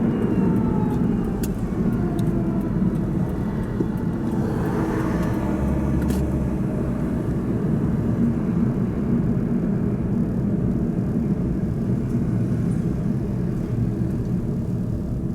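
Steady engine and road noise of a car driving, with faint gliding tones in the first few seconds.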